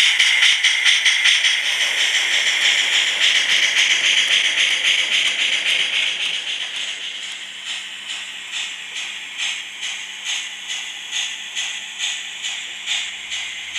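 Sound decoder of a Modelbex 141 TA model steam locomotive playing hissing exhaust chuffs in a steady rhythm, the beats synchronised to the wheels. The chuffing gets quieter about halfway through as the locomotive runs away.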